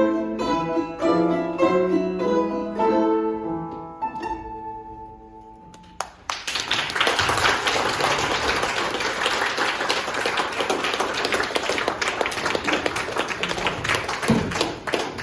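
A plucked string instrument plays the closing notes of a Russian folk song, the last note ringing and fading out. About six seconds in, an audience breaks into sustained applause.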